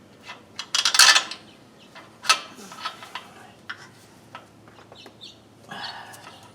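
Metal tools and parts clinking and clanking as they are handled, with a loud clank about a second in and another a little after two seconds, and lighter clicks between.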